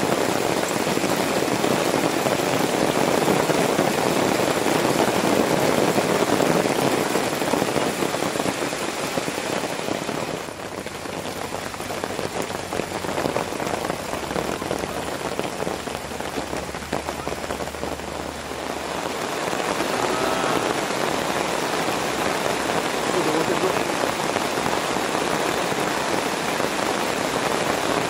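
Rain falling steadily on a camping tarp overhead and the grass around it. It eases somewhat about ten seconds in and comes back up around twenty seconds.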